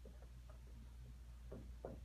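Dry-erase marker writing on a whiteboard: a few faint, short squeaks and strokes as letters are drawn, over a low steady hum.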